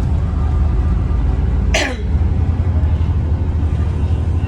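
Bus running, heard from inside: a steady low engine and road drone. About two seconds in there is one brief sharp sound that falls quickly in pitch.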